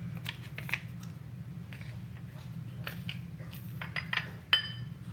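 Small glass dishes being slid and set down on a granite countertop: scattered light clinks and scrapes, with one sharper glass clink that rings briefly near the end, over a steady low hum.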